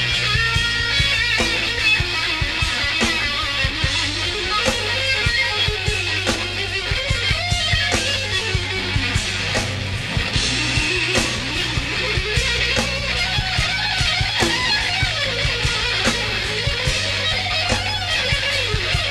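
Live instrumental rock: an electric guitar plays a lead line, its notes gliding up and down, over held bass notes and drums.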